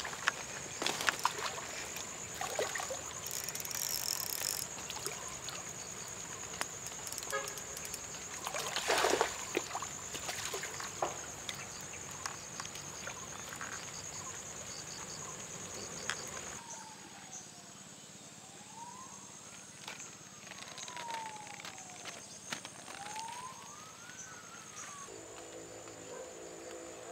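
Lakeshore background with a steady high insect-like hum and scattered clicks and knocks. After a cut, a slow wailing tone rises and falls several times, like a distant siren. A steady hum of several tones starts near the end.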